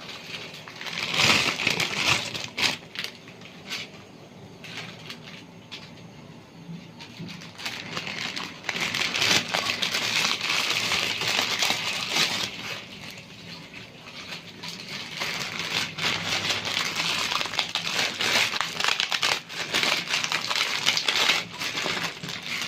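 Dry instant noodle blocks crackling and crunching as they are pushed down into a pot of boiling water, in three bouts of several seconds with scattered clicks.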